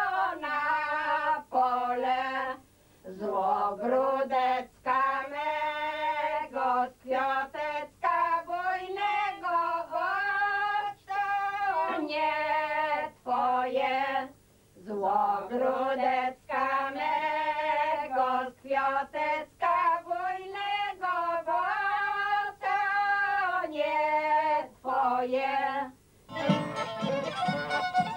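Several elderly women singing a Polish village folk song together without accompaniment, in long held phrases with short breaks between verses. About two seconds before the end the singing stops and a folk band of fiddle, accordion and bass drum starts playing.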